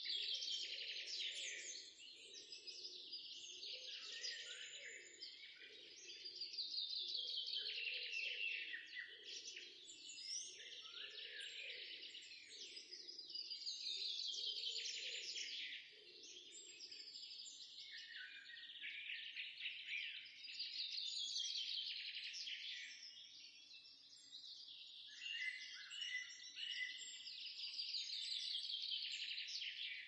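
Garden songbirds singing: repeated falling phrases of song, one every few seconds, with a fainter, lower sound underneath during the first half.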